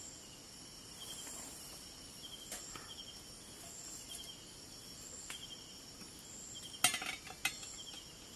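Crickets and other night insects chirping steadily in a continuous chorus. About seven seconds in come a few sharp clinks of cooking gear, the loudest sounds here.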